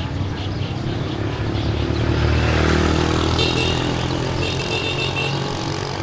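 A motorbike passes close by, its engine growing louder to a peak about halfway through and then fading away. Short high chirps sound twice in the second half.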